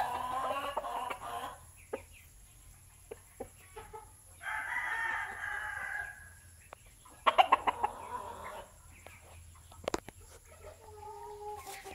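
American-line gamecock rooster calling in separate bouts: a call at the start, a longer one about four seconds in, and a quick run of clucks about seven seconds in, with fainter calls near the end.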